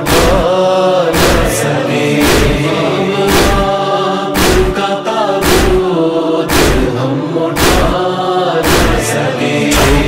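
A chorus of men's voices chanting a noha lament in drawn-out, gliding notes over a deep, regular beat about once a second.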